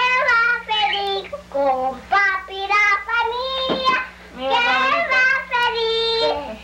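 A young girl singing in a high voice, holding notes and stepping between pitches in short phrases, over a steady low hum.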